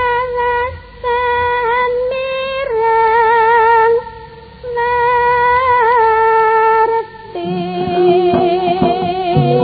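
Music: a woman's voice sings long, wavering held notes in several phrases. About seven seconds in, quick drum strokes come in over a steady held tone.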